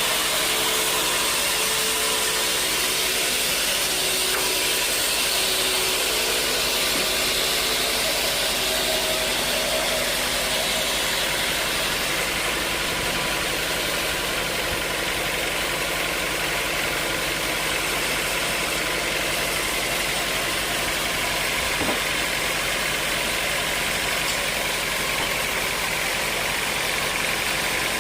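Sawmill machinery running steadily: a constant engine-like drone with hiss. A single short knock comes about two-thirds of the way through.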